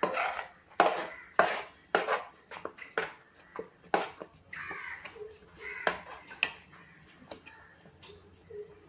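A spatula clacking and scraping against a heavy, thick-bottomed uruli as thick, sticky halwa is stirred and turned. The knocks are irregular, about one or two a second, and strongest in the first few seconds.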